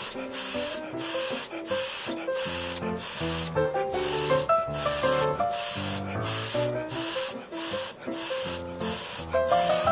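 Background music: a melody over a moving bass line, with a steady hissing percussion layer that pauses about twice a second in time with the beat.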